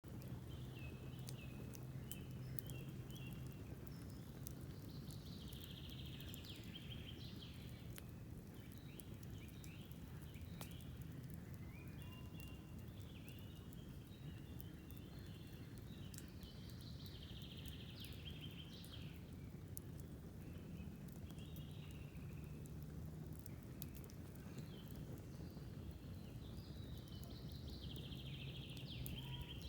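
Campfire crackling with scattered sharp pops, while a songbird sings bursts of chirping phrases three times, each spell lasting several seconds, over a low steady hum.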